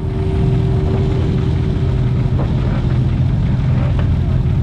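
Polaris RZR Pro R race UTV's engine running steadily under way, with a thin steady whine that drops out about halfway through.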